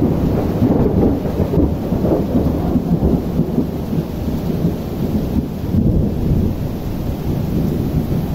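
Thunderstorm on the seashore: storm wind and rain make a continuous low, rumbling rush that swells and dips.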